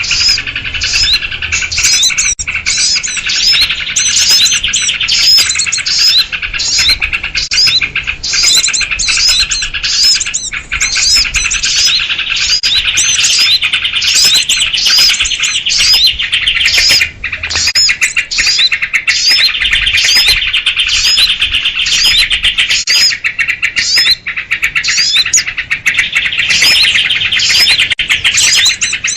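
A dense, unbroken chorus of small birds chirping and scolding, led by agitated calls of sooty-headed bulbuls (kutilang), with short sharp notes repeating a few times a second. This is a 'noisy birds' lure recording, played to draw small wild birds in.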